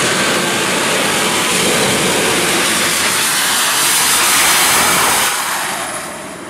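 Jet engine of a jet-powered golf cart running loud with a steady rushing blast as the cart passes close by. It is loudest about four and a half seconds in, then falls away quickly.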